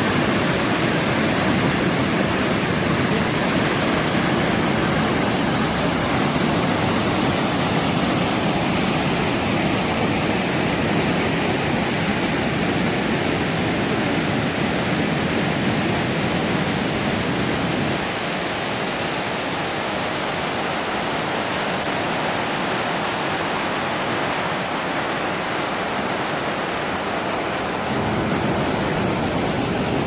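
Kivach waterfall, a large lowland waterfall, rushing with a steady wash of falling water and rapids. The deep part of the sound drops away for a long stretch about two-thirds of the way through, then comes back near the end.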